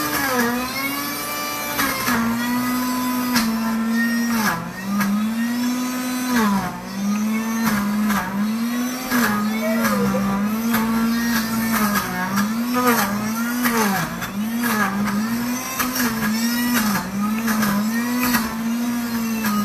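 Pampered Chef Deluxe Cooking Blender's motor running on its smoothie program through frozen fruit. Its pitch sags and recovers every second or so as the thick mix loads the blades while a tamper pushes it down.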